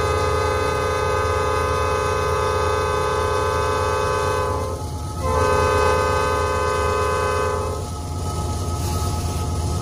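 Norfolk Southern diesel locomotive's multi-chime air horn sounding two long blasts: the first is already going and stops about halfway through, and the second starts a moment later and ends near three-quarters of the way in. A steady low rumble runs underneath.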